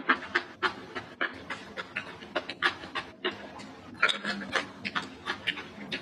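A person chewing food with the mouth, wet smacks about three a second with a short pause midway; the mouthful is rice and jengkol beans.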